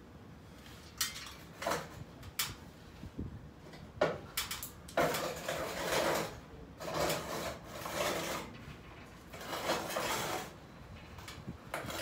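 A few light knocks, a heavier knock about four seconds in, then three long scraping drags, each a second or so, as the air-conditioner outdoor unit is handled and shifted on its ledge.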